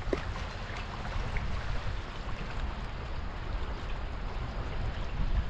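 Shallow river water running and lapping with a steady rush, broken by a few small splashes.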